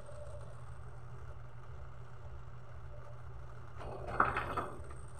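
A steady low background hum while playback is paused, with one faint, brief noise about four seconds in.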